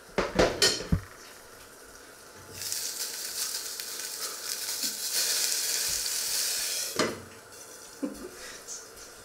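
A stainless steel saucepan lid lifted off with a few metal clanks, then a loud, steady sizzling hiss from the hot pan holding a tomato for about four seconds, cut off as the lid clanks back on. Two light knocks follow near the end.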